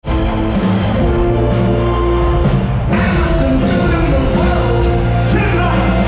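Live band with a lead singer performing in a large hall: held notes over heavy bass and a steady beat, heard from the audience.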